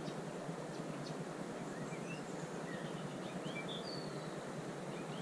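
Steady rush of water flowing at a river weir, with small birds chirping and whistling now and then from about a second in.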